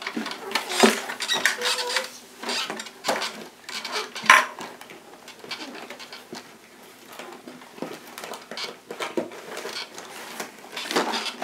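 Plastic toy shopping-cart parts and toy groceries clattering and knocking as they are handled and unpacked, in irregular clicks with one sharper knock about four seconds in.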